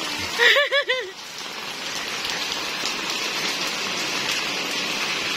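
Steady rain falling, an even hiss. Near the start there is a brief call of four short notes, each rising and falling in pitch.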